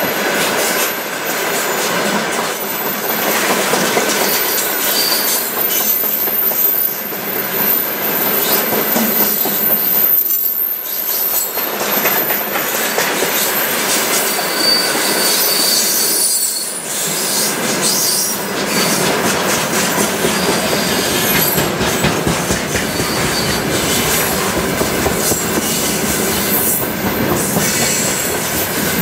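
Railway tank cars of a long freight train rolling past close by: a steady noise of wheels clattering on the rails, with brief high-pitched wheel squeals coming and going.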